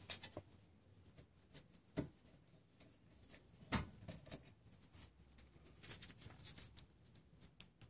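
Faint scattered clicks and knocks of a wrench loosening the lower caliper bolt on a 2003 Honda Accord's rear disc brake and of the caliper being handled. The sharpest knock comes a little under four seconds in, another about two seconds in, with a cluster of softer ticks and scrapes around six seconds in.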